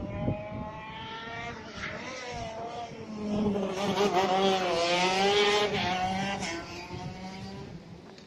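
A go-kart engine running at speed, growing louder about three seconds in as the kart passes close, its pitch dipping and then rising again, before it fades away.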